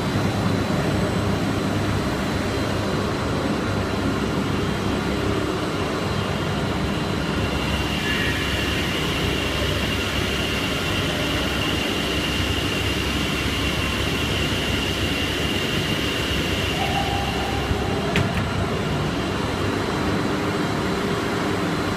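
Snack pellet extrusion line machinery running steadily, a constant mechanical noise with a low hum. A high whine joins in for several seconds in the middle, and there is a single sharp click near the end.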